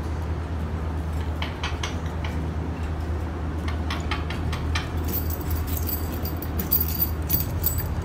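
Indian ringneck parakeet's beak and claws clicking and rattling on the metal wire bars of a cage as it climbs, a few scattered ticks at first and many sharp ones over the last few seconds, over a steady low hum.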